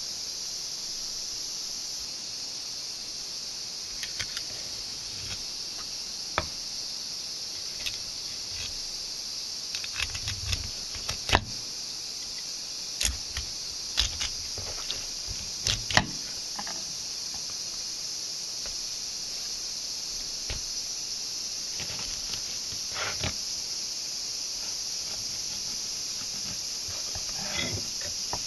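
Kitchen knife filleting a frigate mackerel on a plastic cutting board: scattered clicks and knocks of the blade on the board and through the fish, busiest in the middle, over a steady high hiss.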